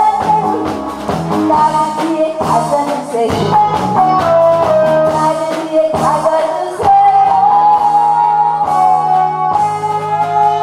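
A woman singing into a microphone over amplified backing music, with a guitar-like melody line; toward the end the voice drops out and the instrumental backing carries on.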